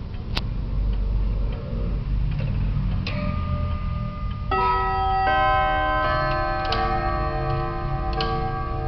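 Antique wall clock ticking, then its chime rods strike a sequence of ringing notes that enter one after another and overlap, a chime beginning about three seconds in and filling out from about four and a half seconds.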